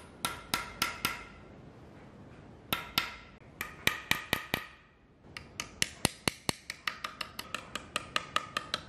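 Small hammer tapping a steel punch held on a thin metal plate, sharp metallic taps that ring briefly. They come in a few short groups, then settle into a steady run of about four taps a second over the second half.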